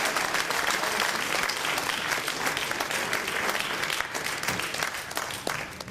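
Audience applauding, a dense patter of many hands clapping that thins out somewhat near the end.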